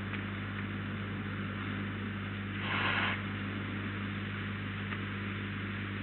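Steady electrical hum with a constant hiss, with one short breathy hiss about three seconds in.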